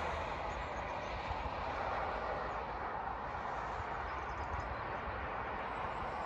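Road traffic on the main road below: a steady tyre hiss from passing vehicles that eases slightly, with wind rumbling on the microphone.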